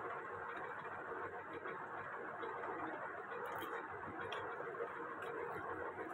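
Steady hiss of room noise with a few soft clicks of a spoon against a plate as someone eats noodles.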